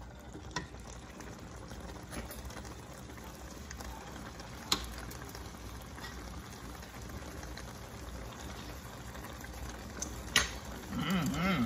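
Thick goat and vegetable stew bubbling at a steady simmer in a pot, with three light clinks of a metal spoon against the pot, the loudest about halfway through.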